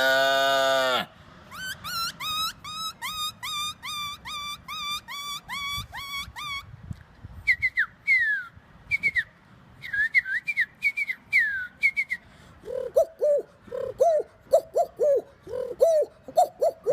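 A man imitating animals with his voice. First the tail of a cow's moo, then a quick run of repeated whistled bird chirps, then a string of higher falling whistles. In the last few seconds comes a low repeated cooing like a dove.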